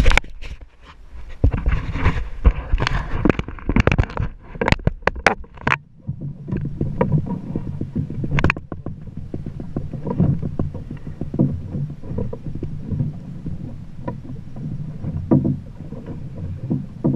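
Sea water sloshing and slapping against the hull of a small open boat, with loud irregular knocks and rumble that give way to quieter sloshing about six seconds in.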